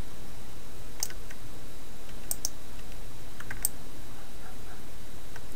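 Occasional clicks of computer keys, about six, some single and some in quick pairs, over a steady low hum.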